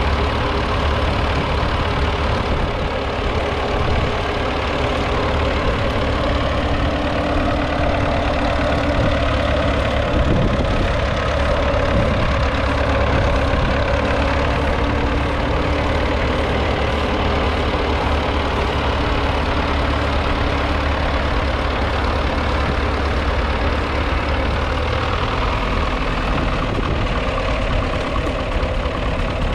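A 1942 Fordson Model N's 4.4-litre four-cylinder petrol/TVO engine running steadily while the tractor pulls a two-furrow trailed plough through the soil.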